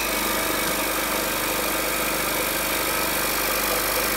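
Makita Active Air 1.5 electric air compressor running steadily, its motor and twin-head piston pump switched on just before.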